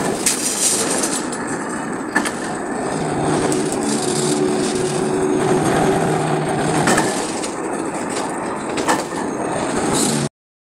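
Metal-spinning machine running as its rollers press against a large iron karahi pan turning underneath, giving a steady motor hum under a gritty scraping noise with a few sharp clicks. The sound cuts off suddenly near the end.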